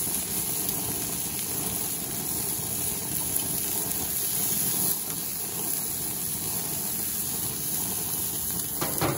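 Baby octopus sizzling on hot barbecue grill grates, a steady hiss, with a short knock near the end as metal tongs work among them.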